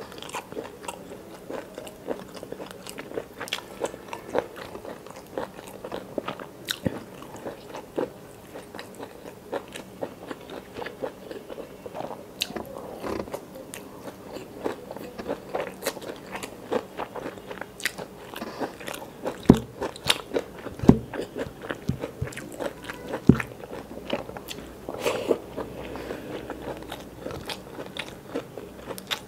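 Close-up eating sounds: a person biting and chewing, with wet mouth noises and crunching, while eating rice and curry by hand and a mouthful of stir-fried water spinach. A few louder, sharper crunches come about two-thirds of the way through.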